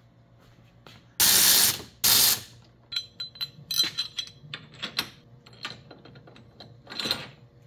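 Cordless electric ratchet spinning in two short bursts, about a second and two seconds in, driving the bolt of a side-mirror mount. Between and after the bursts come small clicks and knocks of the metal bolt, nut and mirror bracket being handled and fitted.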